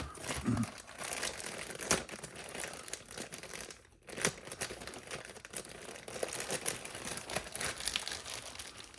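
Plastic kit parts bags crinkling and rustling as they are handled and torn open, with scattered small clicks, and a brief lull about four seconds in.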